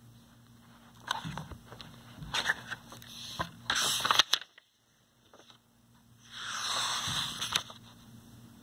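Hardcover picture book being handled and opened: scraping, clicks and crackling of the cover and pages for a few seconds. After a short silent gap, a page swishes over about six seconds in.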